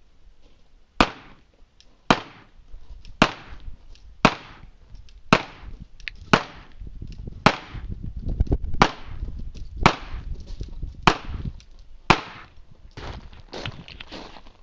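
A Mossberg 500 12-gauge pump shotgun firing a string of about eleven shots of number 7 birdshot, roughly one a second, each report with a short echoing tail. Lighter clattering follows near the end.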